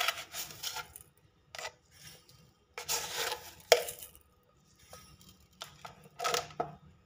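Granulated sugar tipped by the tablespoon into a glass blender jar over strawberries: three short showers of grains pattering onto the glass, each about a second long, with a few light clicks of the spoon between them.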